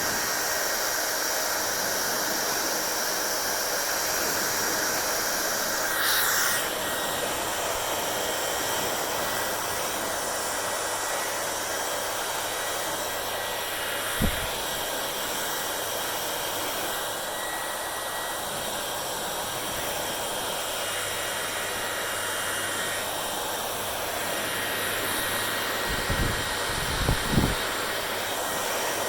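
Hair dryer blowing steadily, a constant rush of air with a faint high whine. About six seconds in, the rush briefly gets louder. There is a single low thump near the middle and a few more low thumps near the end.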